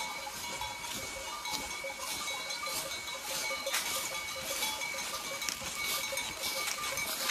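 Footsteps crunching and rustling through a thick layer of dry fallen leaves, about two steps a second.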